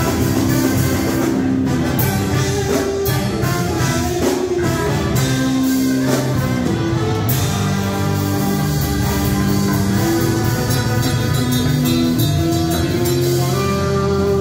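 A live band plays a passage on trombones, electric bass, electric guitar and drum kit, with the horns holding long notes over a steady beat.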